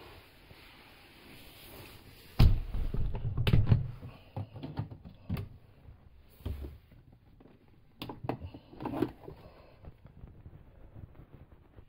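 Knocks and thumps of someone moving about and handling things inside a small van: a heavy thump a little over two seconds in with a low rumble for about a second, then scattered clicks and knocks.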